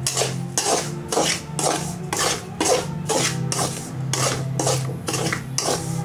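Spatula scraping and stirring dry semolina and ragi flour around a metal kadai in quick, regular strokes, roughly two to three a second, as the flour is dry-roasted.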